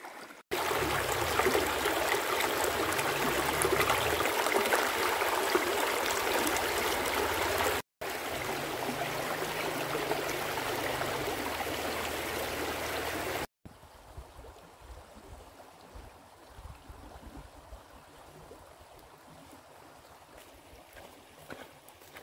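Shallow stream running over rocks close to the microphone. The sound cuts off briefly about eight seconds in, and again about thirteen seconds in, after which it is much fainter.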